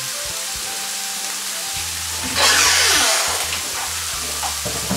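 Sliced onions and green bell peppers sizzling as they sauté in a frying pan, a steady hiss with a louder surge of sizzling for about half a second around two and a half seconds in.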